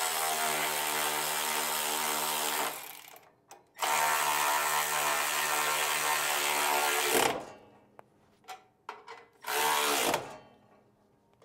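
Cordless electric ratchet running down nuts onto the bolts of a mower-deck mount: two steady runs of about three seconds each, a few light clicks, then a short final burst near the end.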